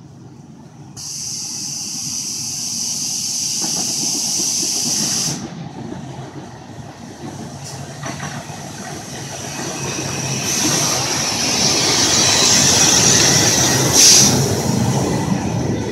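Miniature park-railway steam train arriving at a station. A loud steady hiss of steam starts about a second in and stops suddenly after about four seconds. Then the rumble and rattle of the small locomotive and its open carriages rolling past grows louder, with a short burst of hiss near the end.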